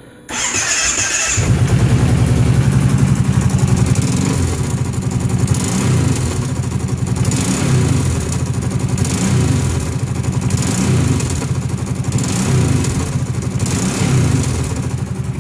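Small engine started with a brief whir, catching about a second in, then revved up and let fall again and again, a blip every couple of seconds. The owner hears a tick, and a click or snap as the revs come down, and does not know the cause.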